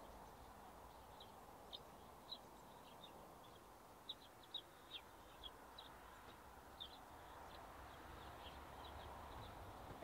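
Small songbirds giving short, high chirps at irregular intervals, thickest around the middle, over a faint low background rumble.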